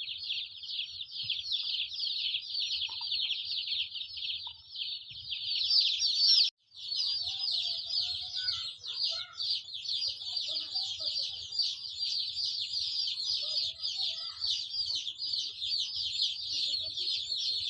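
Many day-old chicks peeping continuously in a dense chorus of high chirps. The sound cuts out for a moment about six and a half seconds in.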